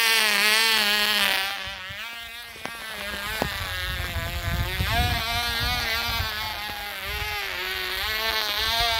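Cox Pee-wee .020 glow engine running flat out with a high buzz whose pitch wavers up and down, loud up close at first, then fainter from about a second and a half in as the model flies away. Wind rumbles on the microphone in the second half.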